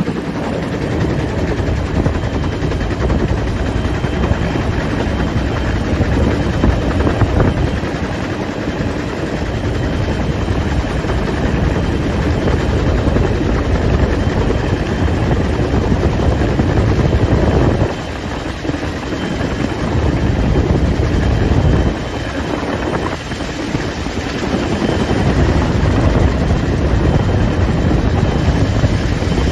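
Helicopter rotor and engine noise, loud and steady, heard from aboard at the open cabin door. It dips briefly twice in the second half.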